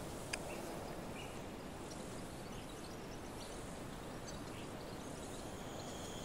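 Quiet outdoor ambience: a steady background hiss with a few faint, short, high chirps scattered through it and a small click about a third of a second in.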